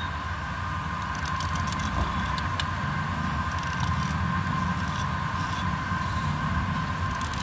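A small blade scraping a wet slate pencil, giving scattered short scratchy clicks. Under it runs a steady low rumble with a faint high whine.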